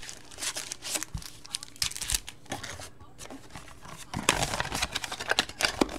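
Foil trading-card packs crinkling and rustling as they are handled and pulled out of a cardboard box. The crinkling grows louder and busier about four seconds in.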